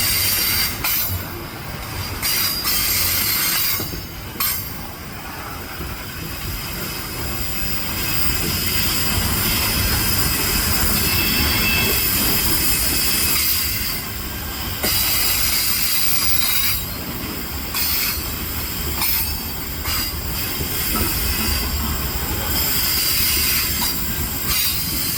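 Loaded grain wagons of a heavy freight train rolling slowly past on a steep grade, a continuous low rumble with steel wheel and rail noise over it.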